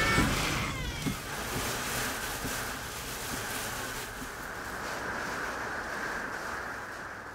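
Wind and heavy rain of a severe storm heard from inside a vehicle on a wet highway: a steady rushing hiss over a low rumble that slowly grows quieter.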